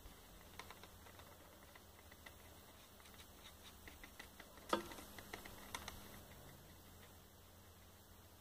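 Faint, irregular soft taps of a wad of scrim being dabbed onto an inked mount-board collagraph plate, with one sharper knock about halfway through.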